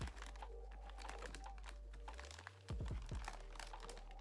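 Plastic packaging being handled and opened: scattered light clicks, taps and crinkles, with a couple of louder knocks about three seconds in, over a steady low hum.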